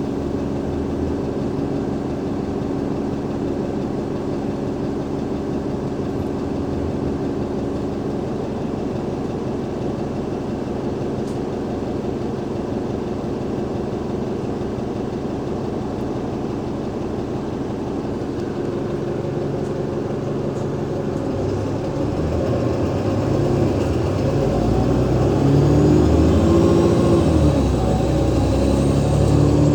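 Cummins ISL 8.9-litre six-cylinder diesel of an Alexander Dennis Enviro500 MMC double-decker bus running steadily at low revs, then, about 22 seconds in, growing louder as the bus pulls away, its pitch rising and falling as the ZF Ecolife automatic gearbox shifts up.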